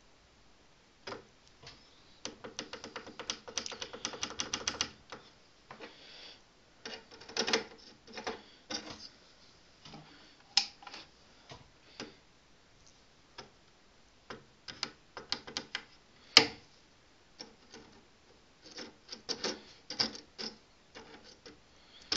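Irregular clicks and taps of hands and a screwdriver handling parts on a workbench beside a computer motherboard. About two seconds in there is a fast rattling run of clicks lasting a few seconds, and a few sharper single clicks come later.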